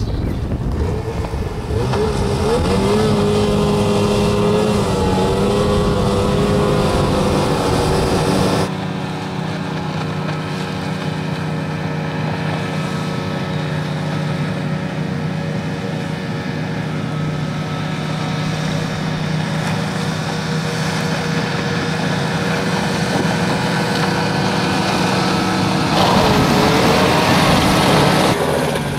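Snowmobile engine powering an AIR Responder ice-rescue craft through broken ice, running steadily with its pitch wavering in the first several seconds. The sound jumps abruptly about nine seconds in and again near the end.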